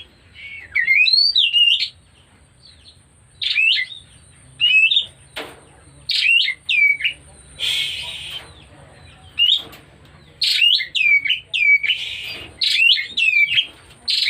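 Oriental magpie-robin (kacer) singing in short whistled phrases of quickly rising and falling notes, with a few harsher, noisier notes mixed in. This singing is taken as a sign that the bird is coming into breeding condition.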